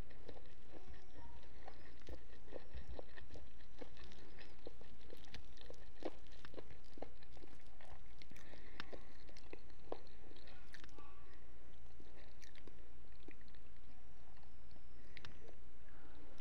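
Close-miked chewing with many small wet mouth clicks and smacks scattered throughout, over a steady low hum.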